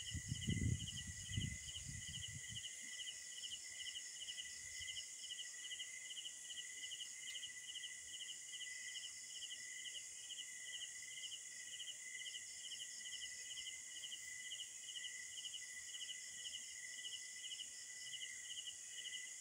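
Night-time insect chorus: a steady high trill with a pulsing chirp about two to three times a second over a fainter high hiss. A few low thumps come in the first couple of seconds.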